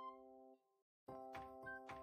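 Background music: held notes die away and the sound cuts out completely for a moment about a second in, then the music comes back with a run of short repeated notes.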